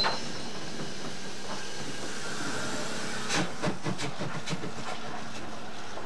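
Steam locomotive at close range, a steady hiss of steam around its cylinders and running gear. A quick run of about six sharp clicks and knocks comes a little past halfway.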